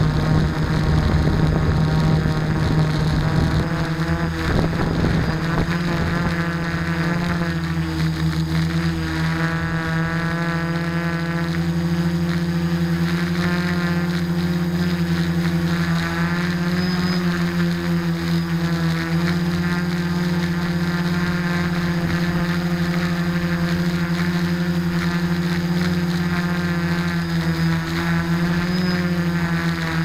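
Quadcopter's electric motors and propellers buzzing steadily, heard close up from the onboard camera, the pitch wavering slightly as it flies.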